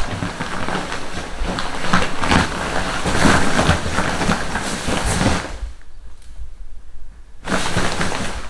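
Nylon shell of a large down sleeping bag rustling as it is handled and moved, in a dense run of swishes that drops away about two-thirds of the way through, then comes back briefly near the end.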